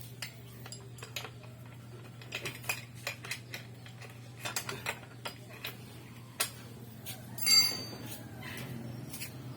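Scattered metallic clicks and clinks of small metal parts or tools being handled, with one louder ringing clink about three-quarters of the way through. A steady low hum runs underneath.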